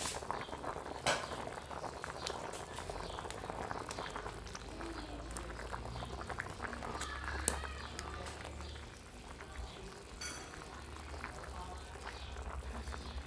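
Pot of beef soup bubbling at a rolling boil, with a metal ladle stirring through it and a few sharp knocks.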